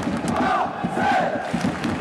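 Football supporters chanting in unison, a large crowd of mostly male voices singing one tune over continuous crowd noise.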